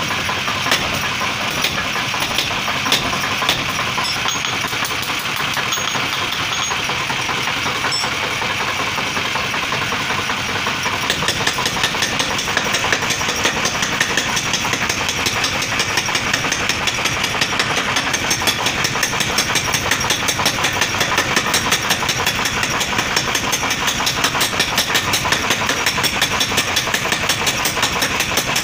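Forging power hammer running and pounding a red-hot steel sickle blank with rapid, regular blows. The blows turn sharper and more distinct about eleven seconds in.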